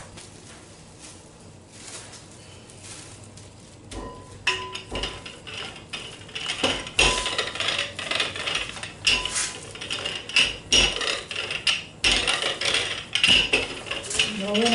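Wooden rolling pin rolling out a ball of pie dough on a tabletop: repeated back-and-forth strokes with clicking and knocking from the pin, starting about four seconds in after a quieter start.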